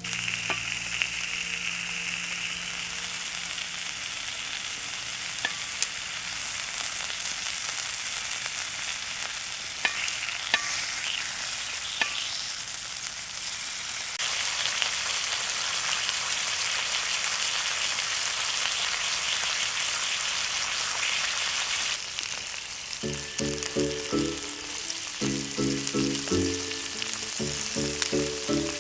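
Food frying in a hot pan, sizzling steadily with a few sharp pops. Near the end a simple melody of background music comes in over it.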